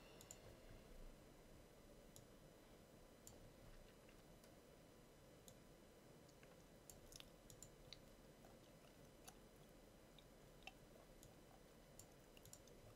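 Near silence with faint, scattered computer mouse clicks, a few in quick succession about seven seconds in.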